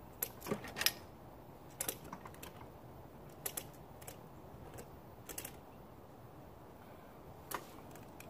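Ratchet strap being tightened: short metal clicks of the ratchet at irregular spacing, several close together in the first second, then more spread out, with a last one near the end.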